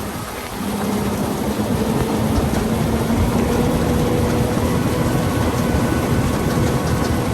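Heavy farm harvesting machinery running steadily, an engine drone with a constant hum over mechanical noise.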